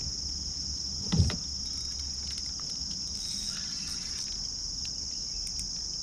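Steady high-pitched chorus of crickets or similar late-summer insects, with a single short thump about a second in.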